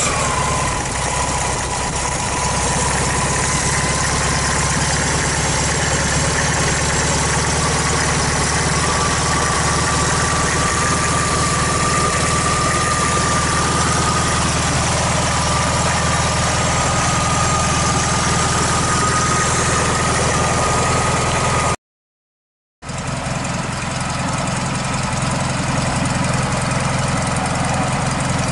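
1969 Volkswagen Beetle's air-cooled flat-four engine idling steadily, with a thin whine riding above it that creeps slightly up in pitch. The sound drops out completely for about a second near the end, then the idle resumes.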